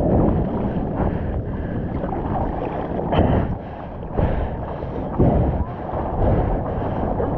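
Seawater rushing and splashing around a mouth-mounted GoPro in the surf, heard muffled through the camera housing, with several louder splashes about a second apart in the second half.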